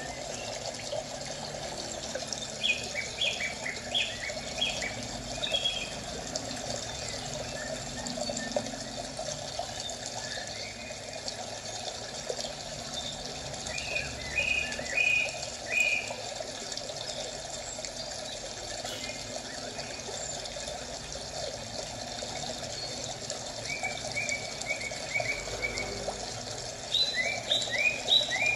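Steady flowing-water ambience with birds chirping: four short runs of quick, high chirps over the continuous rush of water.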